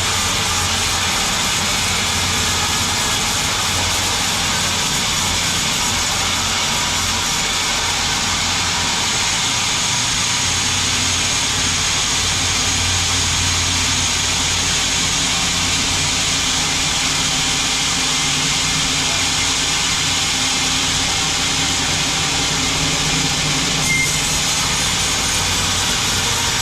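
Sawmill machinery running steadily with an even, continuous mechanical noise and a low hum.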